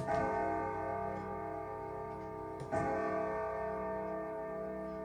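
1978 Howard Miller triple-chime grandfather clock striking the hour of eight: two deep strikes a little under three seconds apart, each ringing on long with many overtones, over the steady ticking of the movement.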